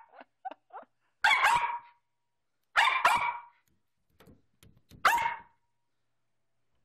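Small terrier barking three times in play, sharp high barks about a second and a half apart, with a few faint taps between them.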